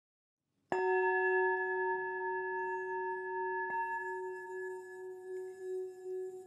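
A singing bowl struck about a second in, ringing with one steady low tone and several higher overtones. It is struck again more lightly about halfway through, and the ring slowly fades.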